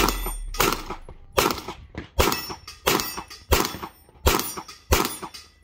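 Pistol fired in steady succession: about eight shots, roughly two-thirds of a second apart, each followed by a short echo.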